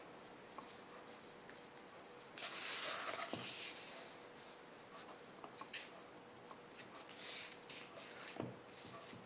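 Pencil scratching along a wooden ruler on card, with one longer stroke about two and a half seconds in and shorter marks later. Light knocks as the ruler is moved and set down, one near the end.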